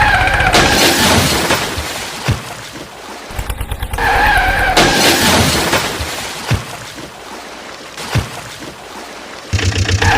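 Vehicle engine sound, with a wavering tone that comes in at the start and again about four seconds in, and three short sharp clicks.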